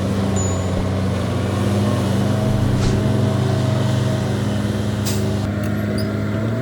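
Heavy diesel engine of earthmoving machinery running steadily at a constant speed, with two short hissing or clanking noises about three and five seconds in.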